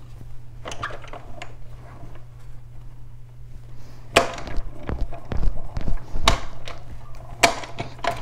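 Hand-cranked die-cutting machine being cranked, its cutting-plate sandwich with metal dies and cardstock feeding through the rollers. Irregular knocks and clunks, mostly from about four seconds in.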